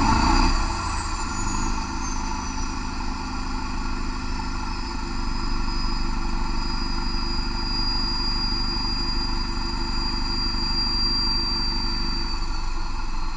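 Scania DC16.02 V8 turbo-diesel on an engine dynamometer with the load coming off, settling to a steady run near 1,500 rpm at light load. Over it, a high turbocharger whistle falls slowly in pitch as the turbo spins down, and fades near the end as the revs start to drop.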